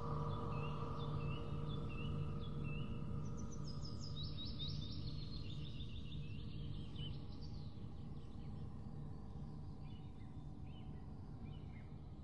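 Small birds chirping in quick repeated runs of short notes over a steady low hum and held tones, the whole bed slowly fading out.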